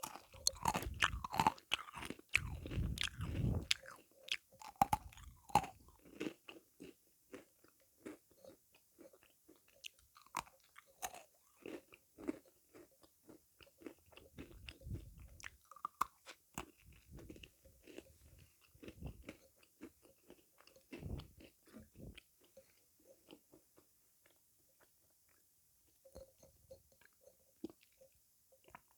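A person biting and chewing crunchy sweets close to the microphone: sharp crunches and chewing, densest in the first few seconds, then sparser, with a short quiet gap near the end.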